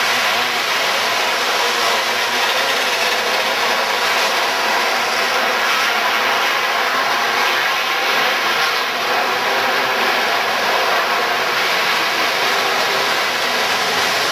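A pack of winged outlaw dirt kart engines racing together, their sound blending into one steady, loud drone.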